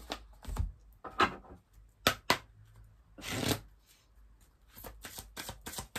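A deck of oracle cards handled and shuffled by hand: a few separate snaps and slides of cards at first, then a quick, even run of light card flicks about five or six a second near the end.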